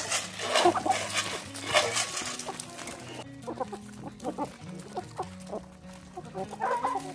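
Chickens clucking in short calls while they peck corn off gravel. Sharp pecking and scratching clicks fill the first three seconds, and the clucking comes more often after that, over background music.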